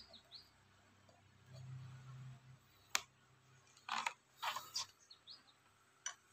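Paper and cardboard being handled: a sharp tap about three seconds in, then rustling of stiff paper as a manual and card are pulled from a cardboard box, and another small tap near the end. Faint bird chirps in the background.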